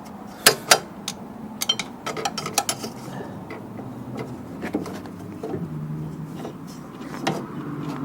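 A screwdriver clinking and scraping against a snowblower's metal belt pulley as a belt is pried off around it: two sharp clicks, then a quick run of clicks, then scattered ones.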